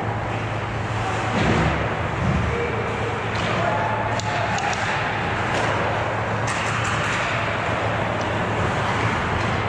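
Ice hockey game in play: a steady rush of rink noise over a low hum, with two dull thumps in the first few seconds and sharp clacks scattered through the rest, and faint distant voices.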